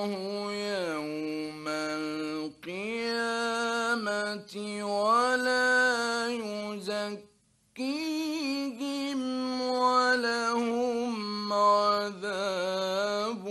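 A male reciter chanting the Quran in the melodic, drawn-out tajweed style. He holds long notes that step and glide between pitches, with a short pause for breath about seven seconds in.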